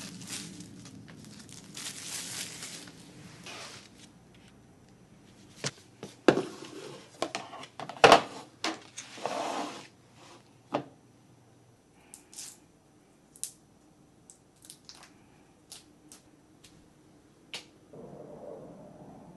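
Plastic food packaging crinkling and rustling as it is handled. Then a run of sharp knocks and taps from items and containers being set down, followed by a few light clicks.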